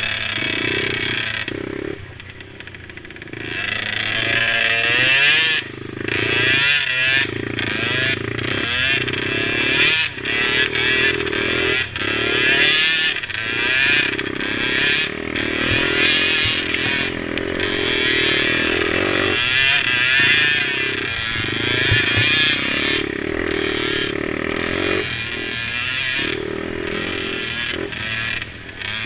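Mini quad engines racing, revving up and easing off again and again as the riders work the throttle.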